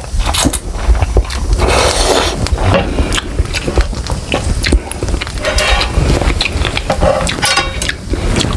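Close-miked slurping of instant noodles and chewing, with clicks and scrapes of a wooden spoon and chopsticks in a noodle pan.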